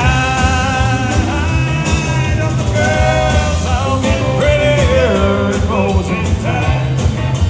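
Live country band playing through a PA: a male lead voice singing over acoustic and electric guitars and drums.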